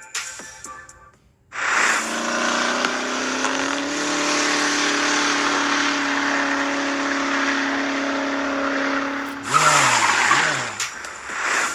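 Mazda RX-7 FD rotary engine running hard at high revs for about eight seconds, its pitch climbing a little early on and then holding steady. A louder, rougher stretch follows near the end.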